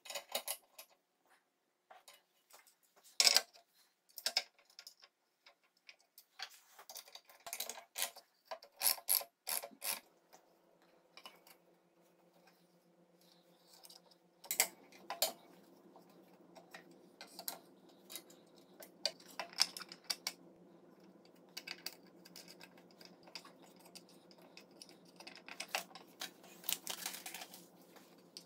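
Clicks, taps and clinks of metal parts and hand tools being handled while a guard-and-featherboard assembly is fitted to a jointer, played at triple speed. A faint steady hum comes in about halfway.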